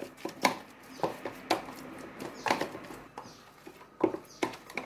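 A spoon stirring a wet henna mixture in a plastic tub, with irregular scrapes and clicks against the sides about once a second.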